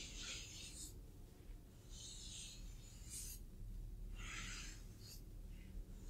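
Terry-cloth towel rubbing and dabbing over a person's hands: a series of short, soft swishes about once a second.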